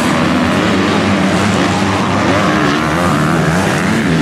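MX2-class motocross bike engines revving hard, their pitch repeatedly rising and falling back as the riders work the throttle around the track.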